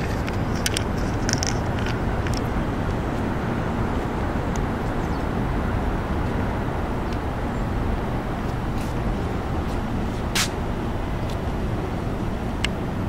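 Steady low rumble of distant city traffic, with a few short clicks and one sharper click about ten seconds in.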